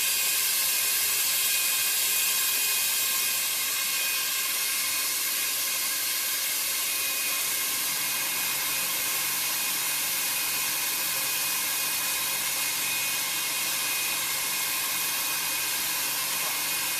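Hot air seam sealing machine running, a steady hiss of blown hot air, with a faint low hum joining about halfway through.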